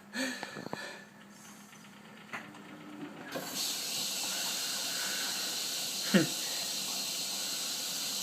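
Bendix 7128 washing machine's water inlet opening about three seconds in, then a steady hiss of water filling the machine at the start of the wash.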